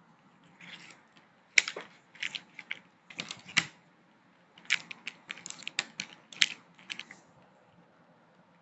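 Hard plastic toy tiles clicking and clattering as they are handled, with a little crinkling of plastic wrap; an irregular run of sharp clicks in two clusters, starting about a second and a half in and stopping about seven seconds in.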